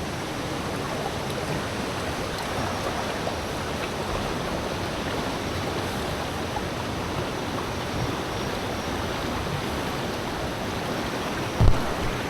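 River rapids rushing steadily around a raft. A single dull thump comes about half a second before the end.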